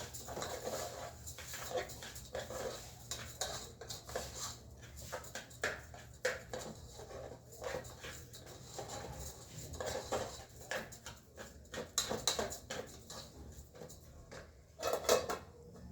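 Pots and metal utensils clinking and knocking again and again during cooking.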